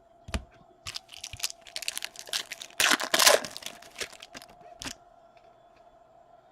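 A trading-card pack's foil wrapper being torn open and crinkled: a run of tearing and crinkling, loudest about three seconds in, that stops about five seconds in.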